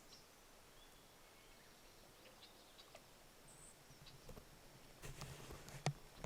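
Near silence with a few faint clicks, then about five seconds in a short rush of noise and one sharp sneeze from an American beaver, probably from water in its nose.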